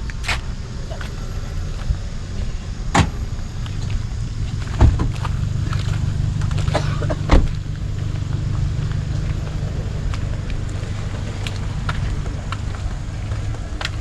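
A vehicle running steadily with a low rumble that grows stronger partway through, and three sharp knocks.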